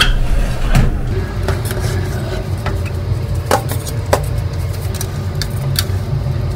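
Metal baking trays knocking and clinking as they are lifted out of an oven and slid back in with metal tongs, several sharp separate knocks. Under them runs a steady low mechanical hum.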